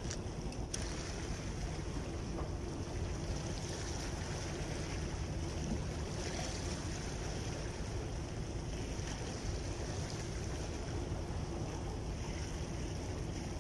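Steady wind noise on the microphone mixed with the sea washing against the rocks.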